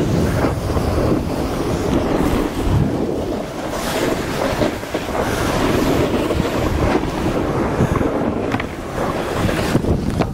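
A snowboard's edges carving and sliding over groomed, packed snow: a continuous rough hiss that rises and falls with the turns. Wind buffets the microphone at speed.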